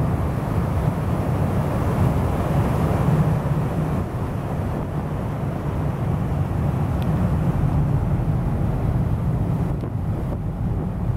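A ship's wake churning and rushing past at speed, over a steady low rumble from the ship, with wind on the microphone.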